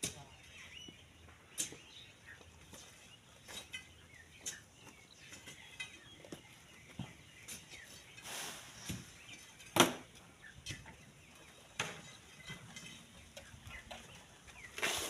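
Iron bar jabbing and prying at a loose black sand cliff face: scattered irregular knocks of metal on sand and stones, with sand and gravel sliding down. One knock about ten seconds in is much sharper than the rest.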